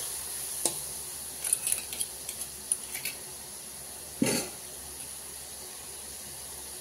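Spice masala frying in mustard oil in a metal kadhai, a faint steady sizzle. A steel spoon clinks and scrapes against the pan several times in the first three seconds, and there is one louder knock about four seconds in.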